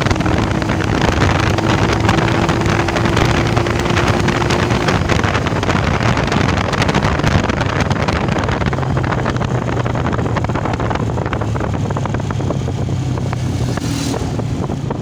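United US 125 motorcycle's single-cylinder four-stroke engine running at road speed, mixed with heavy wind noise on the microphone. The sound grows a little quieter in the second half as the bike slows.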